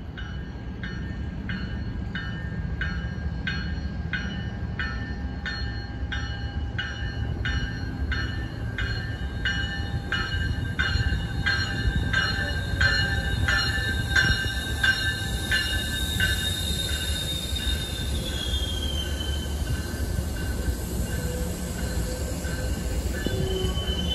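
MBTA commuter rail train pulling into the station, its bell ringing about twice a second until about two-thirds of the way through, over the rumble of the cars that grows louder as it comes in. A wheel squeal starts near the end.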